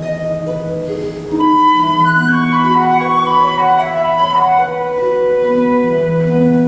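Flute and harp playing a duet: a flute melody over harp accompaniment, growing louder about a second and a half in with a run of quick, higher notes.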